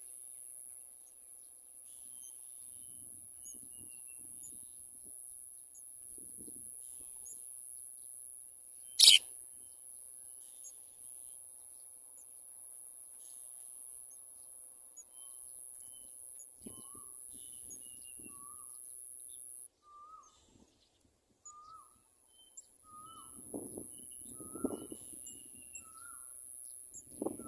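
Birds chirping in short falling series, joined in the second half by a lower, repeated call about once a second, over a steady high-pitched whine. A single sharp click about nine seconds in is the loudest sound, and there are bits of rustling.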